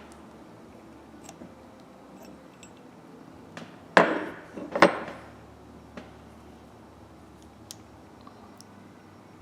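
Metal ratchet parts and tools clinking during handling, with two louder metallic clanks about four and five seconds in.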